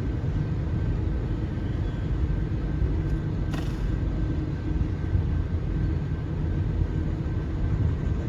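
Long freight train rolling past: a steady low rumble of wheels on rails, with a faint thin high tone above it and a brief click about three and a half seconds in.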